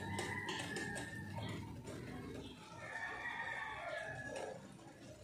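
Two long drawn-out calls, each about two seconds and wavering slightly in pitch, one near the start and one about halfway, over light crackling from a pancake cooking in a nonstick frying pan.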